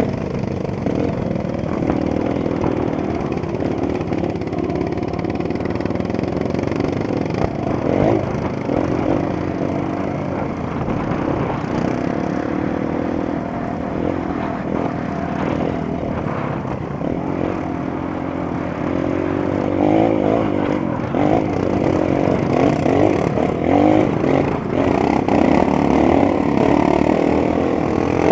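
Honda CRF230 dirt bike's single-cylinder four-stroke engine running under load on a trail, its revs rising and falling with the throttle. It gets louder and revs harder in the last third.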